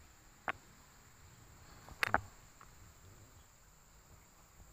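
Insects, crickets among them, chirring steadily and faintly in high pitch, with two short sharp crackles about half a second and two seconds in.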